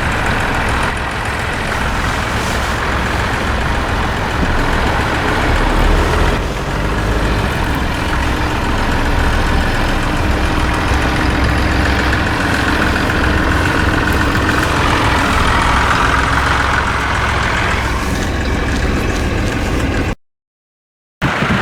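Tractor engine running steadily, with the sound cut off for about a second near the end.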